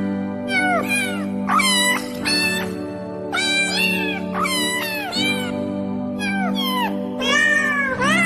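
Cat meowing again and again, about a dozen short meows that bend up and fall away, over background music with a low held chord.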